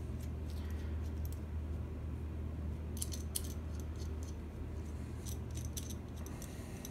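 Light metallic clicks and clinks of a steel withdrawal tool and its screws being handled: a few about three seconds in and more around five to six seconds, over a steady low hum.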